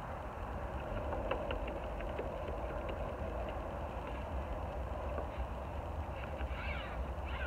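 A steady low engine rumble, with a few faint ticks about a second and a half in and some short chirps near the end.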